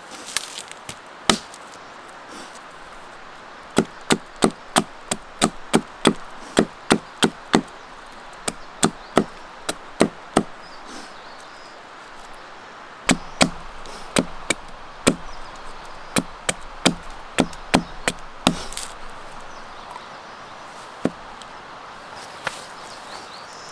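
Quick runs of sharp wooden chopping strikes, about three a second, in two bursts with a pause between and a few single strikes. Underneath is a faint steady hiss.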